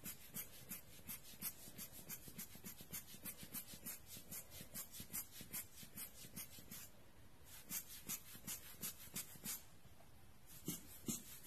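Giottos Rocket rubber-bulb air blower squeezed again and again by hand, giving quick, even puffs of air about three times a second, faint, with a couple of longer hissing blows near the middle and toward the end.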